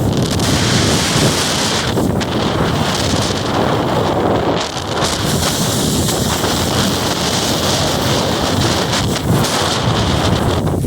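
Strong wind buffeting the microphone in a blizzard, a loud, steady rushing roar with a low rumble under a high hiss.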